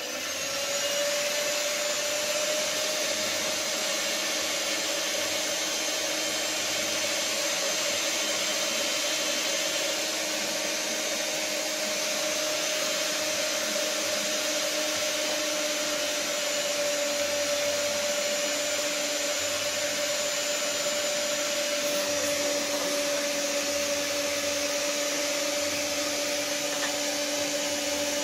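Small electric stand mixer running at a steady speed, mixing bagel dough; its motor gives an even hum and whir throughout.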